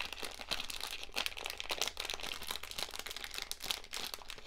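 Plastic packaging of a new watch band crinkling as it is handled: a continuous run of quick, irregular crackles.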